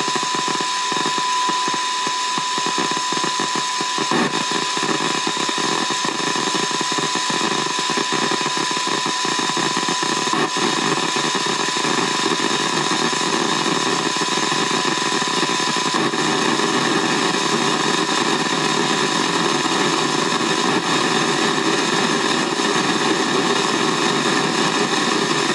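Receiver audio from a software-defined radio: a steady test tone over loud, even static hiss. The tone drops in level in steps, with a faint click at each step, and after the third step it is lost in the noise, showing how added attenuation (insertion loss) buries a received signal.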